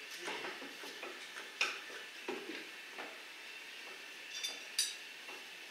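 Light metallic clinks and scrapes of hand tools and a metal can being handled on a workbench. There are a few sharp clicks, and one short ringing clink near the end.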